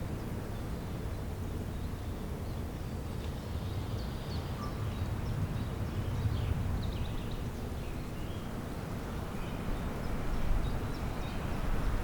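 Outdoor spring ambience: faint, scattered bird chirps and short calls over a steady low rumble.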